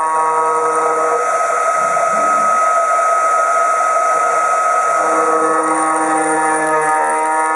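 CNC gantry router's high-speed spindle whining steadily while a V-shaped cutter engraves lettering into hard black granite, with a hiss from the cutting. A second set of tones comes and goes over the whine.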